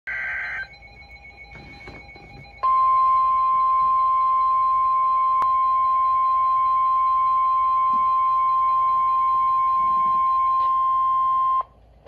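Weather alert radio speaker sounding an alert: a brief high warble of the coded alert header ends under a second in. After a short pause, the single steady warning alarm tone of NOAA Weather Radio sounds for about nine seconds and cuts off sharply. This tone signals that a warning broadcast is about to be read.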